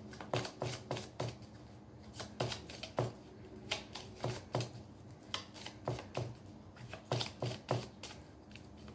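A deck of tarot cards being shuffled by hand: an irregular run of short, light card clicks and slaps, a few each second.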